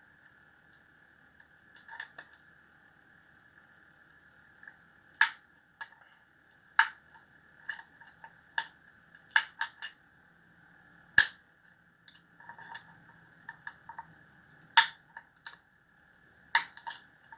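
A plastic bottle being trimmed with a cutting tool: a series of sharp, irregular snips and snaps, about a dozen, over a faint steady hiss.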